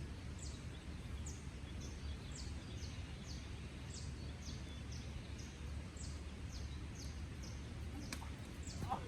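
Outdoor ambience: a steady low rumble under a series of short, high, downward-sliding chirps repeating about twice a second, with one sharp click about eight seconds in.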